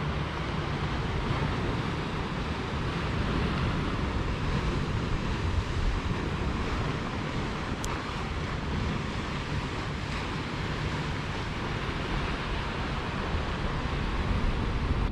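Sea surf washing against a rocky shore, a steady rushing with slight swells, under wind rumbling on the microphone.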